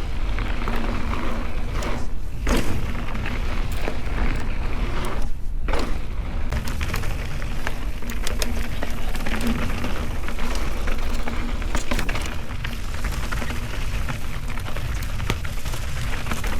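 Mountain bike riding down a dirt and rock trail: tyres crackling over gravel and rocks, with frequent knocks and rattles from the bike and a steady rumble of wind on the microphone.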